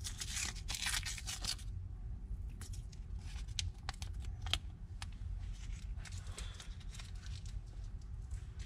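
Blue painter's tape peeled off a rubber hose: a ripping rasp in the first second and a half, then light crinkling and scattered small clicks as the last of it comes away.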